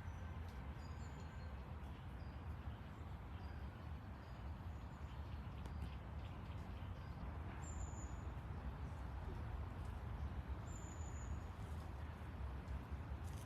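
Small birds chirping with short, high, scattered calls; two clearer, falling chirps come about eight and eleven seconds in. Under them is a steady outdoor hiss with a low rumble and faint scattered ticks.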